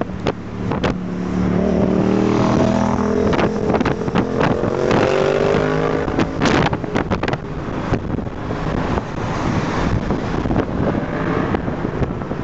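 Engine of a moving vehicle heard from inside, its pitch climbing slowly as it accelerates over the first six seconds and then running on under road noise. Wind buffets the microphone throughout.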